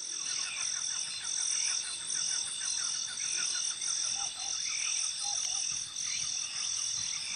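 A chorus of chirping insects: a high chirp pulsing about twice a second over a steady high whine, with a faster train of softer clicks lower down.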